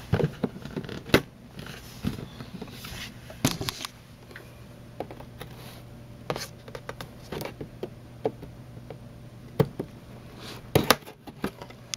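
Knife slicing and scraping through packing tape on a cardboard box, with scattered sharp taps and clicks from the blade and box being handled.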